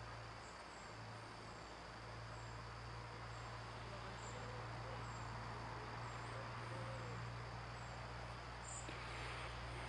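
Faint outdoor background: a steady low hum with faint, short high-pitched chirps recurring about once a second.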